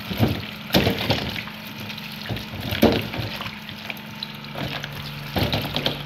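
Tap water running into a plastic basin while hands rub and turn peeled unripe plantains in the water, with irregular splashes and knocks.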